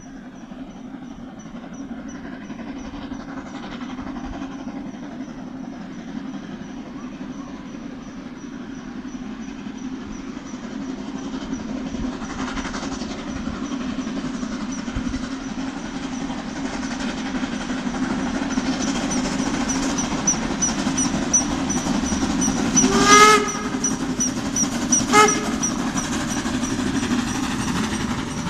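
Narrow-gauge steam train of the Brocken railway approaching, its running noise growing steadily louder. The locomotive whistles twice, a longer blast about three-quarters of the way through and a shorter one two seconds later.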